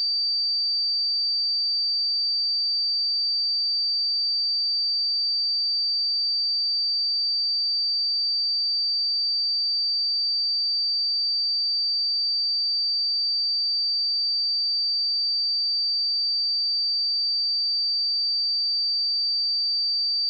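A pure 4641 Hz sine-wave test tone, a single steady high-pitched whistle held at constant level.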